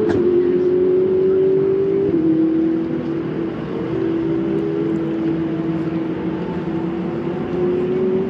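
Ferrari 488 Challenge Evo race car engines running on the track, with a steady high engine note that steps down in pitch about two seconds in and climbs again near the end.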